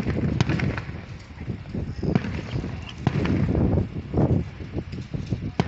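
Wind buffeting the phone's microphone in uneven gusts, with a few sharp cracks of distant fireworks bursting.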